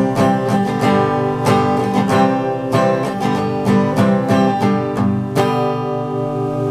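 Acoustic guitar strummed in a steady rhythm, then a last chord struck about five and a half seconds in and left to ring out.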